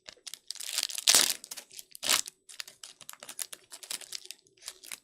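A trading card pack's wrapper crinkling and crackling as it is handled and torn open, loudest about a second in and again near two seconds, followed by a run of small crackles.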